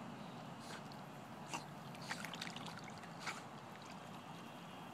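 Lake water sloshing and splashing around a dog wading and swimming, with a few short splashes about one and a half, two and three seconds in.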